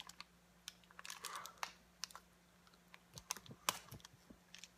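Clear plastic wrapping and a plastic drink bottle being handled, making a scatter of small irregular clicks and crinkles. A faint steady hum runs underneath.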